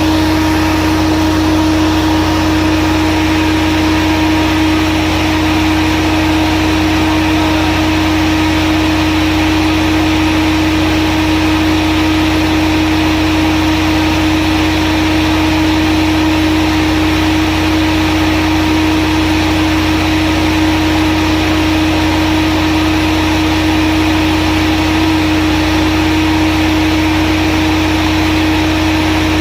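Volvo-engined 150 kVA diesel generator running steadily at constant speed, an even engine drone with a strong steady hum.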